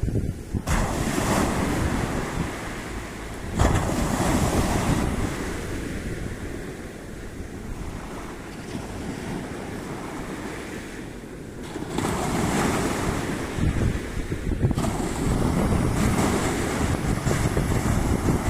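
Sea waves breaking and washing up the shore, swelling louder several times, with wind rumbling on the microphone.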